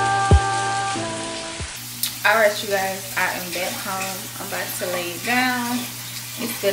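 Music with held tones and a thumping beat for the first couple of seconds, then a shower running, a steady hiss of water spray, with a person's voice over it.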